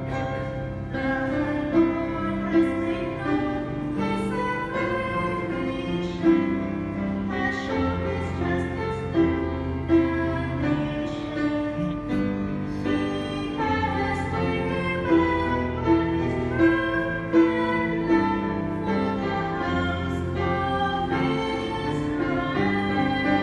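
Responsorial psalm sung at mass: a woman's voice and choir singing to steady instrumental accompaniment with sustained bass notes.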